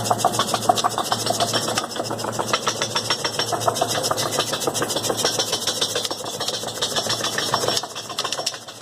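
RuidCar shaker rig working a Mercedes-AMG's suspension, with a low motor hum and a fast, continuous rattle that eases off near the end. The rattle sounds much like a suspension noise but comes from the loose shield (wheel-arch liner) around the tyre.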